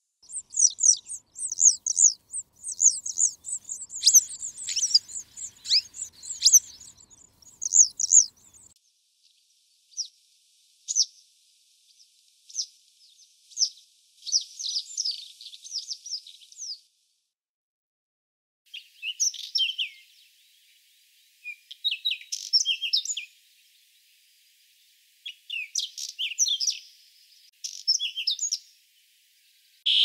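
Citrine wagtail singing and calling: short, high chirping phrases, densely packed for the first nine seconds or so, then in separate bouts with pauses between them.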